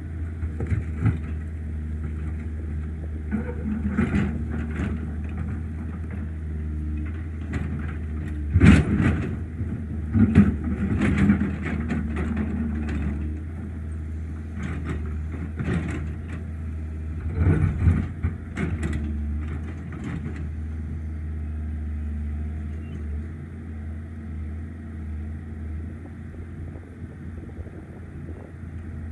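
Excavator diesel engine running steadily, with irregular loud knocks and clatter of rock being struck and broken, mostly in the first two-thirds; after that the engine runs on more evenly.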